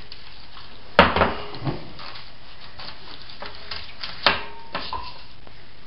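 Hands rubbing a seasoning and bacon-fat crust onto a prime rib roast on a sheet pan: soft wet handling with scattered knocks and clatters of the pan, the loudest about a second in and another a little after four seconds, some with a short metallic ring.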